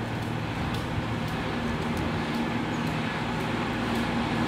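Steady low rumble of road traffic, with a faint steady hum joining about two seconds in.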